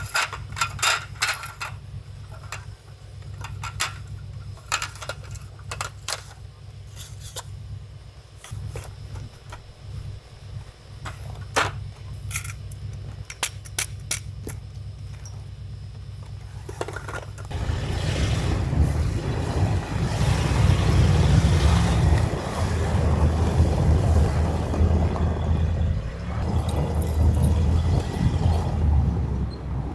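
Clinks, rattles and knocks of a folding aluminium roll-top camp table being taken down, over a steady low hum. About seventeen seconds in, a much louder steady rumble takes over: a van driving through snow.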